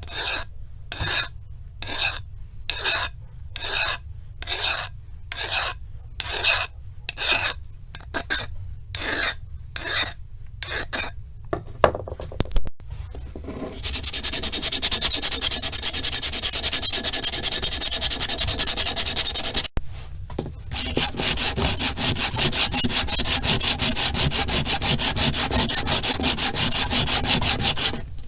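Abrasive rubbing, like filing or sanding. Slow, even strokes come about two a second for the first twelve seconds. After a short pause comes a loud, fast, continuous rasping, broken once by a brief pause about two-thirds of the way through.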